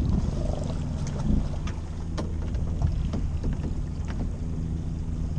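Small boat's outboard motor idling, a steady low hum, with wind on the microphone and a few light knocks and clicks.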